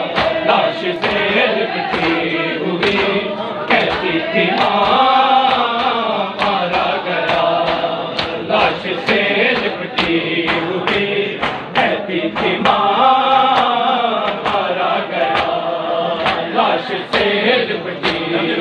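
A group of men chanting a noha, a Shia mourning lament, together, with sharp rhythmic slaps of matam, hands beating on chests, roughly twice a second. The chant climbs in pitch twice.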